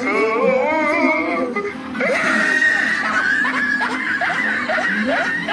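Laughing sound effect: a high-pitched, wavering laugh, going into a run of short rising 'ha' sounds in the second half.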